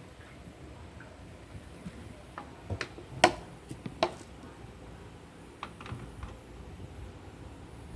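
Scattered sharp clicks and light knocks as metal tools and engine parts are handled, about six in all, the loudest a little over three seconds in.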